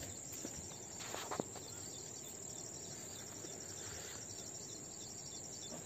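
Steady high-pitched chirring of insects, with two or three faint clicks a little over a second in.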